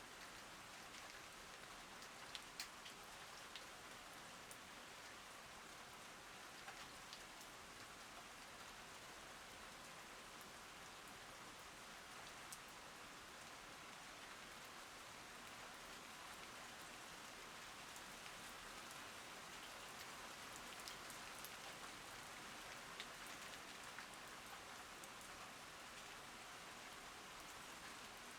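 Faint, steady rainfall, with scattered sharper drop ticks standing out here and there.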